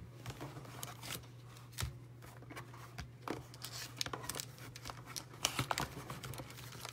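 Trading-card pack wrapper crinkling and tearing as a pack is opened and the cards handled: faint, scattered rustles and clicks.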